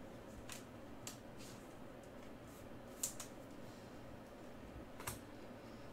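Faint clicks and crinkles of plastic as a trading card is handled and slid into a clear plastic holder. There are a handful of sharp clicks, the loudest about three seconds in.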